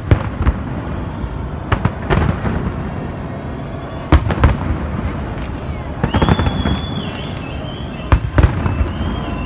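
Big fireworks display: shells bursting in sharp bangs, in clusters of two or three about every two seconds, over a steady low rumble of further bursts.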